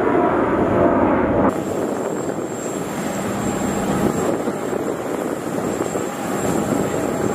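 Aircraft turbine running steadily on the apron: a dense rushing noise with a thin, high, steady whine. The sound shifts abruptly about a second and a half in.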